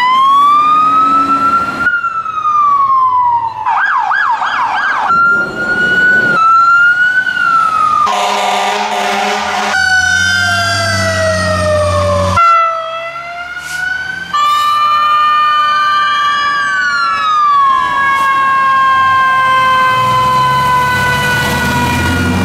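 Fire truck sirens from several clips cut together in quick succession: rising and falling electronic wails, a rapid yelp, and a steady horn blast partway through, with a diesel engine rumbling under some clips.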